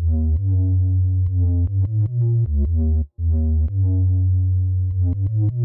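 Deep synthesizer sub-bass from a trap bass preset in Arturia's Trap Drop pack for Analog Lab, playing a bassline of long held notes and quick short ones that shift in pitch.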